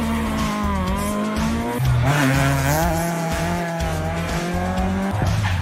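Rally car engines revving hard, the pitch dropping sharply at a gear change about two seconds in and again near the end, as one car pulls away and the next approaches.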